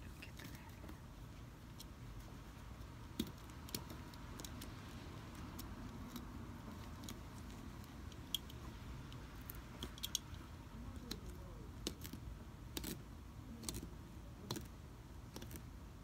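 Faint, scattered sharp clicks and light handling noise as a seam ripper cuts the stitches holding a metal zipper into a leather jacket sleeve.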